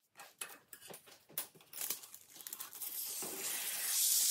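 Scissors cutting through a sheet of baking parchment: a few light clicks and paper rustles, then one long continuous cut from about halfway in, its papery hiss growing louder toward the end.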